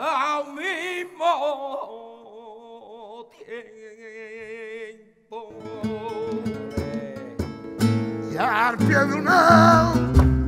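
Flamenco singing: one voice holding long, wavering, heavily ornamented lines, at first unaccompanied. About five seconds in a flamenco guitar comes in with plucked notes and chords, and the voice returns over it near the end.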